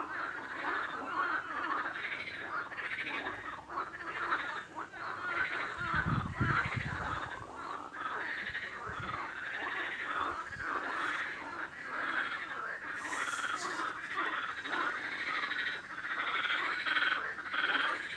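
A chorus of frogs calling, many overlapping croaks running together without a break. A brief low rumble sounds about six seconds in.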